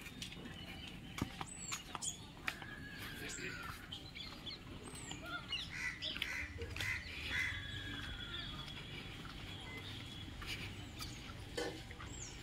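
Outdoor birds chirping and calling in short, scattered notes, with a few sharp clicks.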